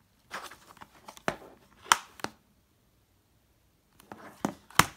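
A plastic Blu-ray case being handled and flipped over on a table: a cluster of clicks and rustles over the first two seconds, then quiet, then another cluster ending in a sharp tap near the end.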